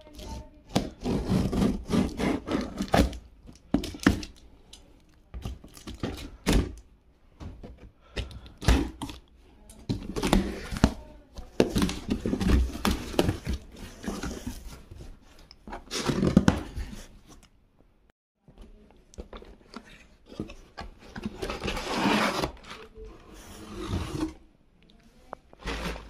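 Packaging being cut open and handled: scissors snipping plastic wrap, plastic crinkling and cardboard box flaps being pulled and knocked. Comes in irregular bursts with several sharp knocks.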